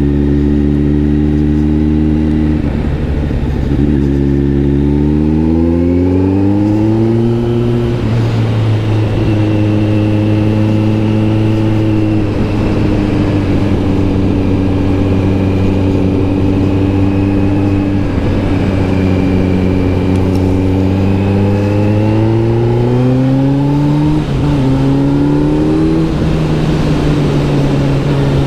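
Kawasaki Z900 SE's inline-four engine through an SC Project S1 exhaust, heard while riding. The note drops out briefly about three seconds in, rises steadily with the throttle, holds at a steady cruising pitch for a long stretch, climbs again with a short dip partway, and falls away near the end.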